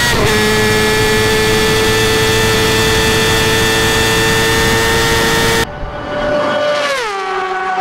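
2020 Honda CBR1000RR-R SP Fireblade's inline-four with a decatted OEM Akrapovic exhaust, at full throttle near 300 km/h over heavy wind rush; a quickshift from fourth to fifth just after the start drops the pitch slightly, then the engine note holds steady and high. About five and a half seconds in, the wind noise cuts out and the bike is heard passing by, its note falling sharply as it goes past.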